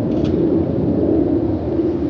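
Boeing 777-300ER's GE90-115B turbofan engines at climb power, heard as a loud, steady, deep rumble from an airliner high overhead. A brief high chirp cuts through about a quarter second in.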